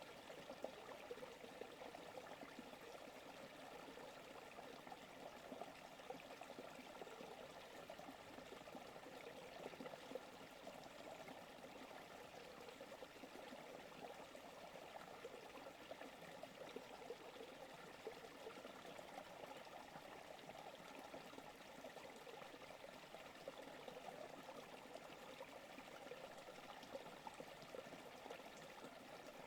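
Forest creek running steadily, an even wash of flowing water with small brief splashes now and then.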